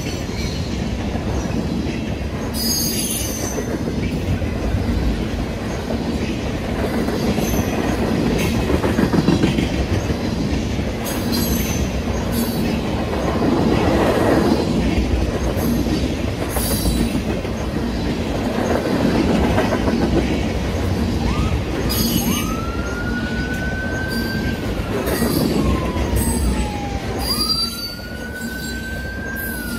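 Union Pacific manifest freight train of tank cars rolling through a grade crossing: a steady rumble of wheels on rail, with wheel squeal coming and going. About three quarters of the way in, a fire truck's wail siren starts, rising and falling twice.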